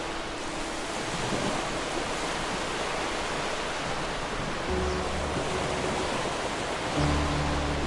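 Steady rush of sea surf under background music; sustained low notes come in about five seconds in and again near the end.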